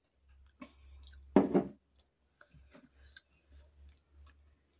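Close-miked eating sounds of a person eating steamed momos: soft chewing and small mouth and hand clicks, with one short, loud voiced sound from the eater's throat about a second and a half in.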